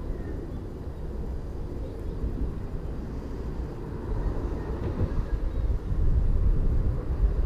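Low, fluttering outdoor rumble that grows louder about five seconds in.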